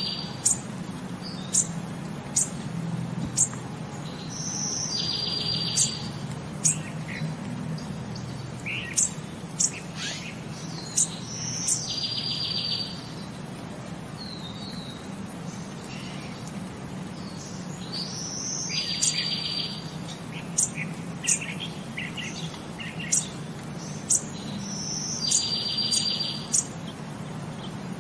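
Birds chirping: short sharp high chirps, with a buzzy trill that comes back about every six or seven seconds, over a steady low hum.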